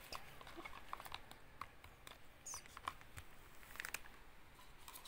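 Faint, irregular sticky clicks and small smacks of glue-and-borax slime being mixed as it starts to turn into slime.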